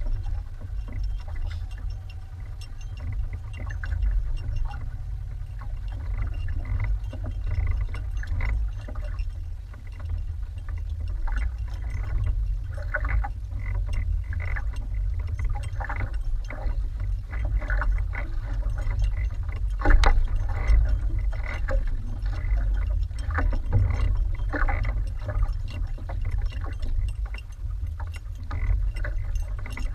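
Steady wind rumble on the microphone over water slapping and splashing against the hull of a small outrigger fishing boat, with irregular light knocks. There is one louder thump about twenty seconds in.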